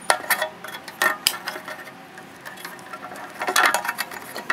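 Light clicks and clinks from hands working the belts and stepped pulleys under the open belt cover of a Ryobi bench drill press, some with a brief metallic ring. There are a few scattered taps early on and a busier cluster about three and a half seconds in.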